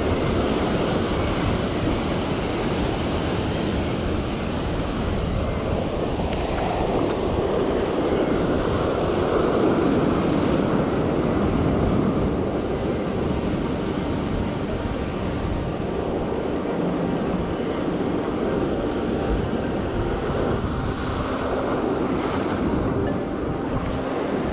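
Ocean surf breaking over shore rocks and washing through them in a continuous rush, swelling a little about ten seconds in.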